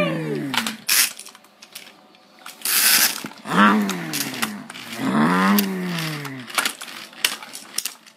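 Die-cast toy cars clicking and clacking as they are pushed into each other on carpet, with two drawn-out vocal noises whose pitch rises and falls, a person making sounds for the cars, about midway.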